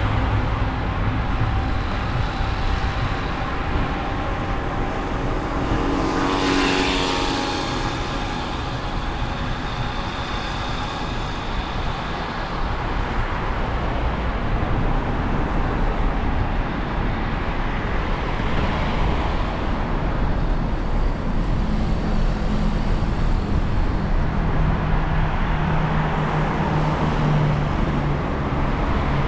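Road traffic on a rain-wet street: a steady rush of tyres and engines, with one vehicle passing close about six seconds in.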